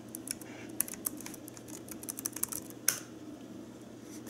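Typing on a laptop keyboard: irregular runs of light key clicks, thinning out near the end.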